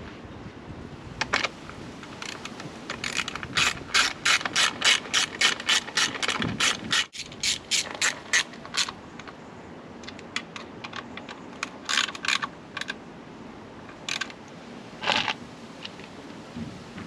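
Hand socket ratchet clicking in runs of quick strokes, about five clicks a second, as cover bolts are wound in, with shorter runs later on.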